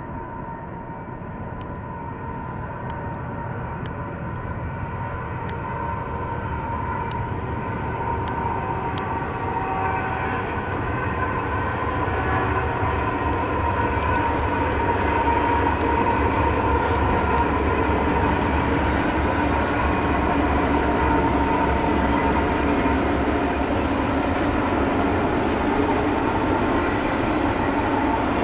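Union Pacific diesel-electric freight locomotives, three units leading a stacked intermodal train, running with a steady engine drone. It grows louder over about the first twelve seconds as they approach, then holds steady as they pass.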